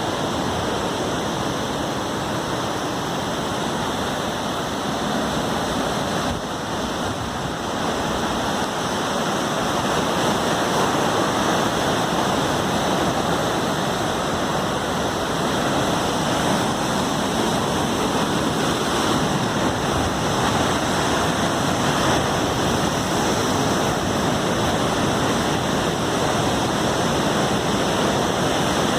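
Steady rushing of water from a waterfall at the cliff-side site, with no separate splashes or strikes; it grows a little louder about a third of the way in.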